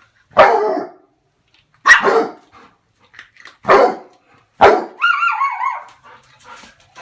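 A frightened dog barking at a broom: four sharp barks spaced one to two seconds apart, followed about five seconds in by a wavering, higher-pitched whining cry lasting about a second.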